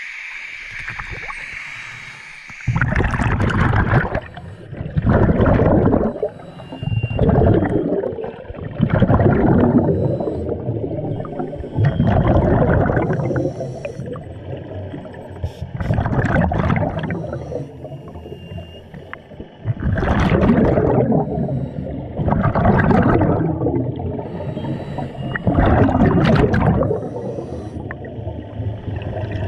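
Scuba diver breathing through a regulator underwater: bursts of exhaled bubbles gurgling past the camera every two to four seconds, with quieter stretches between breaths.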